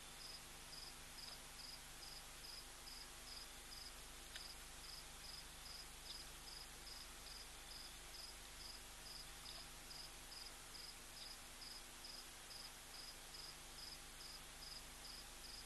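Faint cricket chirping, an even, high pulse about twice a second, over a low hiss of night ambience.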